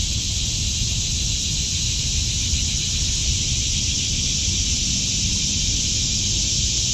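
Steady outdoor background: a constant high hiss with a low rumble beneath, and no distinct events.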